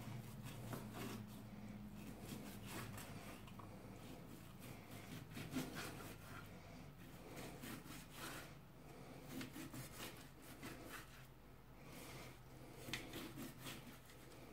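Large kitchen knife slicing a cooked steak into strips: sawing through the meat and knocking on a plastic chopping board, in a run of short, uneven strokes.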